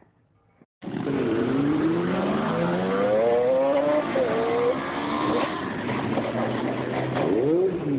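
Several motorcycle engines running and revving together, their pitches rising and falling as the bikes ride past; the sound cuts in abruptly about a second in.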